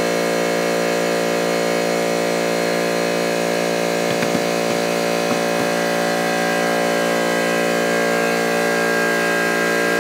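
A workshop motor running steadily with an even, many-toned hum, with a few faint knocks about halfway through; it cuts off abruptly at the end.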